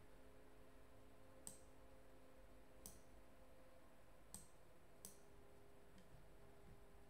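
Near silence broken by four sharp, separate clicks and a fainter fifth, a second or so apart, from clicking at a computer.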